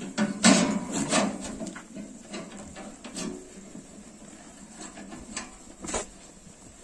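Goats feeding at a metal trough: a cluster of loud knocks and rattles in the first second or so, then scattered fainter knocks as they push against the trough frame.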